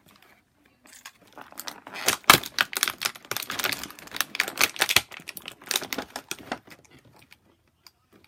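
Action figure packaging of plastic and cardboard being worked open by hand, crackling and clicking. A dense run of sharp clicks and crinkles starts about a second in, is loudest soon after, and thins out near the end.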